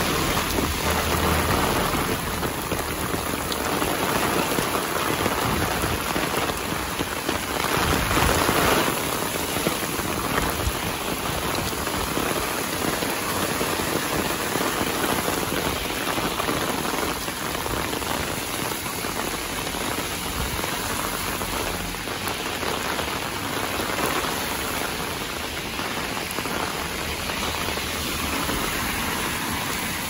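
Heavy typhoon rain pouring steadily onto a wet road and pavement, a dense even hiss that swells louder for a moment about eight seconds in.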